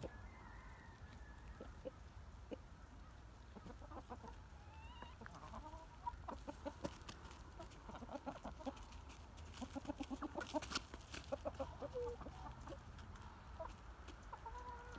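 Backyard hens clucking softly as they forage, with a busier run of short clucks and a few sharp clicks in the middle.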